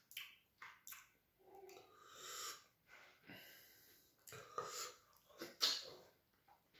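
Close-miked eating sounds of fufu with soup and chicken eaten by hand: irregular wet mouth noises, smacks and chewing, with breaths between.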